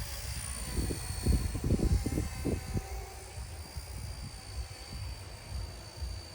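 Electric RC Era C032 UH-1 Huey scale helicopter flying, its motor and rotor a steady high whine that drifts slightly in pitch. Strong wind gusts buffet the microphone, heaviest between about one and three seconds in.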